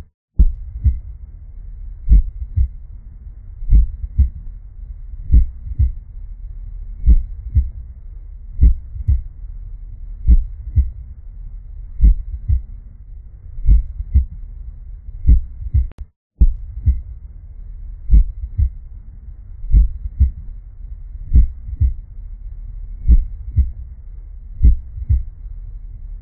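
Heartbeat sound effect: low double thumps, lub-dub, repeating about every second and a half over a steady low hum. It breaks off for a moment about sixteen seconds in, then resumes.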